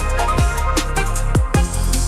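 Electronic background music with a steady beat of deep bass drum hits that drop sharply in pitch, over a sustained bass and melody.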